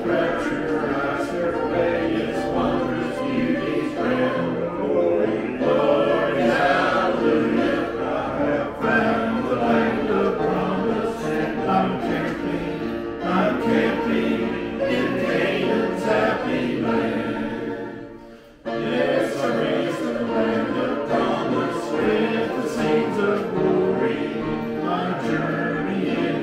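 A group of voices singing a gospel song in harmony. About eighteen seconds in, the sound fades briefly, then comes straight back in.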